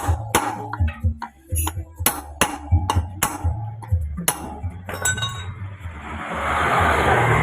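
A quick, steady series of sharp clinking metal strikes, about three a second, with music underneath. The strikes stop about four seconds in, and a rushing noise swells near the end.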